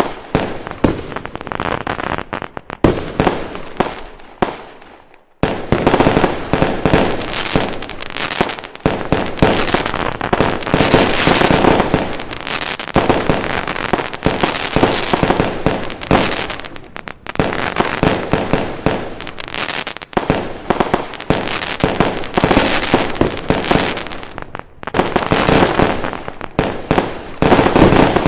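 Fireworks going off in a dense, continuous barrage of bangs and crackling pops. About five seconds in the barrage fades and briefly stops, then starts again and runs on without a break.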